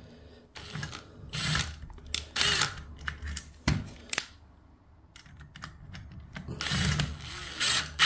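A screwdriver driving a long screw into the metal faceplate of an ERA multipoint lock gearbox: several short scraping bursts from the screw and bit, a sharp click about three and a half seconds in, and metal parts being handled.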